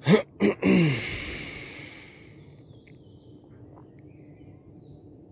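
A man's short wordless vocal sounds, three quick pitched ones like a sigh or hum gliding up and then down, at the start. A breathy hiss follows and fades over about a second. After that comes a faint steady background with a few faint high chirps.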